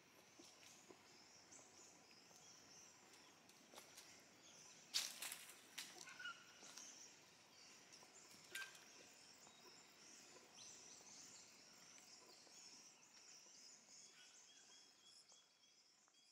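Faint forest ambience: distant birds calling over a steady high chirping chorus, with a few brief sharp clicks about five seconds in.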